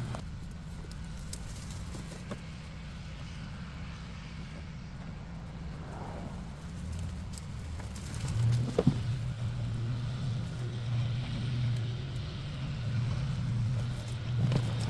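An engine running steadily with a low hum that grows louder about eight and a half seconds in, with a sharp knock just as it swells.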